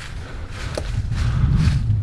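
Footsteps of a hiker walking on a trail, a soft step about every half second over a steady low rumble.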